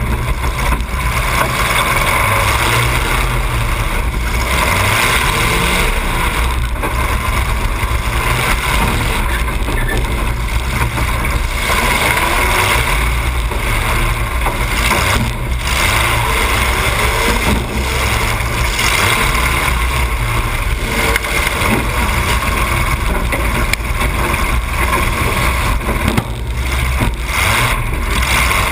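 A demolition derby car's engine running loud through two open exhaust stacks that come straight up through the hood, heard close up. There is one sudden bang near the end.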